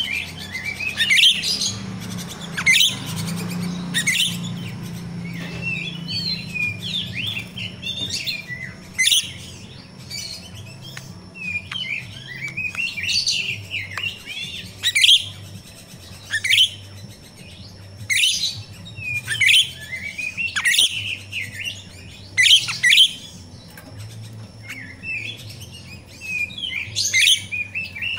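Grosbeak starling (jalak rio-rio) calling: loud, sharp, high chirps about every one to two seconds, with softer chattering between them.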